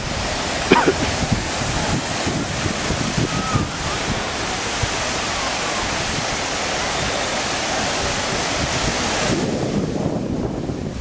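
Steady rushing hiss of a large fountain's falling water, with a low rumble of wind on the microphone. A brief sharp sound about a second in stands out. The hiss thins near the end.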